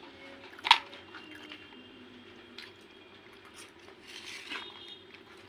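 Crisp deep-fried raj kachori shell cracking as fingers break open its top: one sharp crack just under a second in, then a few small crackles as pieces are pulled away.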